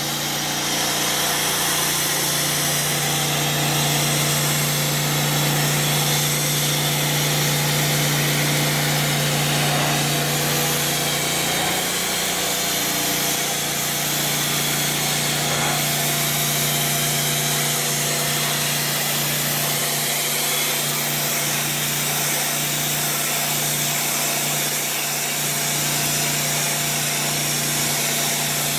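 Pressure washer running at about 3000 PSI, feeding a wet sandblast gun: a steady machine hum under the loud hiss of the water-and-abrasive jet blasting rust off steel. The hum shifts slightly about twelve seconds in.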